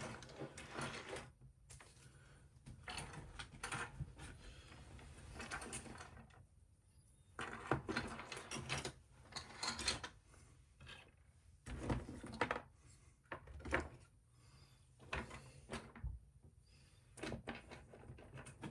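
Scattered small clicks and rustles of plastic parts being handled, as knuckle-duster accessories are fitted onto a Transformers upgrade-kit figure's hands.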